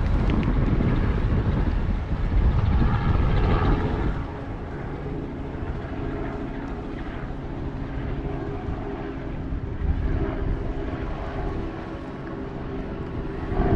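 A steady engine drone holding an even pitch. Gusts of wind buffet the microphone for the first few seconds and again right at the end.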